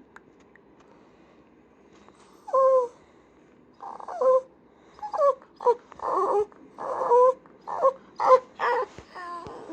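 Italian greyhound whining and yowling, a wake-up call for its morning walk. After a quiet start, about ten short calls that bend up and down in pitch begin about two and a half seconds in and come faster toward the end.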